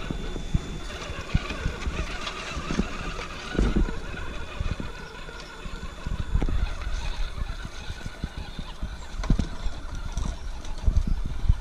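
Axial SCX10 RC rock crawler's electric motor and gearbox whining as it drives over grass and mud, with irregular low thumps throughout.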